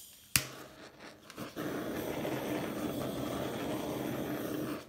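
A sharp click, then a steady mechanical whir with a low hum that cuts off abruptly near the end.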